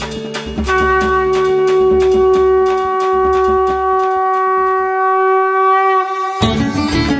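Devotional music: a blown horn-like wind instrument holds long steady notes over a regular percussion beat. The note fades out near the end, and a new musical passage breaks in.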